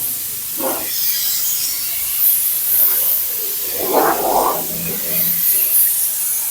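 Spray gun hissing as diesel is sprayed onto a motorcycle to finish and shine it after a wash, with louder bursts of spray about half a second in and again about four seconds in.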